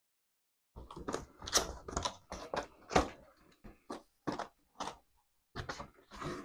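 Cardboard box being opened by hand: the sleeve and flaps scraping and crackling in a quick run of rustles and knocks, starting about a second in.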